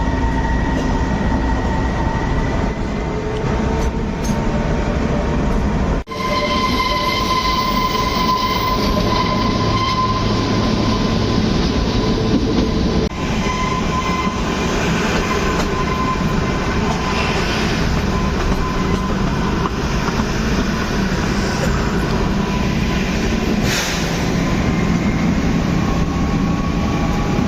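Kalka–Shimla narrow-gauge toy train running: a steady rumble of wheels on the rails, with a thin, high, steady wheel squeal over it.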